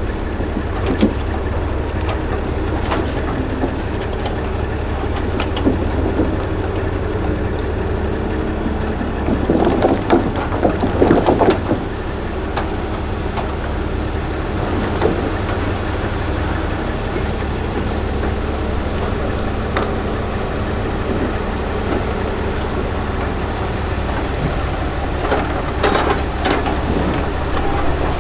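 Log loader's diesel engine running steadily, with clunks and knocks of logs being handled and dropped onto a log truck, a cluster about ten seconds in and more near the end.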